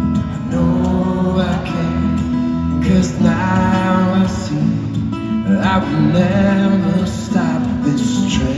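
Live amplified acoustic guitar, fingerpicked over a steady plucked bass pattern, with a male voice singing three long phrases above it.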